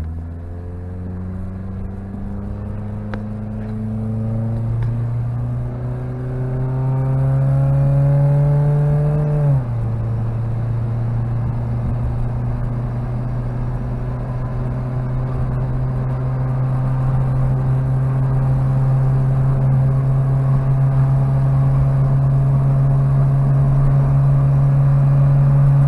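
Mitsubishi Pajero Mini's 660 cc four-cylinder engine heard from inside the cabin, rising in pitch as it accelerates through a gear. About nine and a half seconds in the pitch drops at a gear change, then the engine holds a steady note while cruising, with wind noise through the cab.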